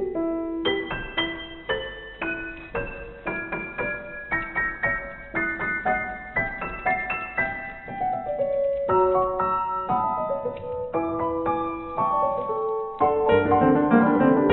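Background piano music: a melody of separate struck notes that ring and fade, growing louder and fuller with denser chords near the end.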